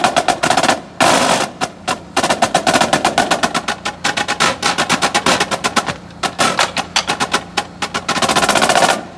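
Marching drumline of snare drums, tenor drums and bass drums playing a fast, loud passage of rapid strokes with stretches of rolls. The whole line stops together just before the end.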